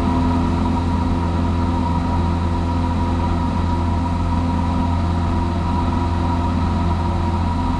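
Cessna 172's four-cylinder piston engine and propeller running at a steady high power setting during takeoff and initial climb, heard inside the cabin as an even drone.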